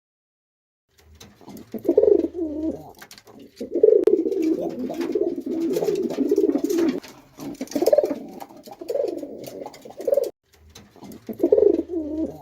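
Pigeon cooing: a string of low, wavering coo phrases, with a short pause about ten seconds in.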